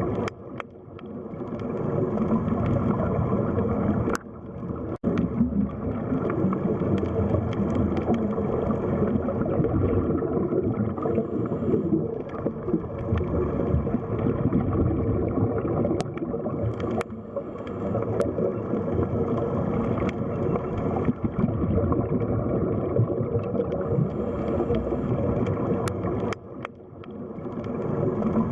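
Underwater ambience: a steady, deep wash of water noise with a faint low hum through it, dipping briefly near the start and again near the end.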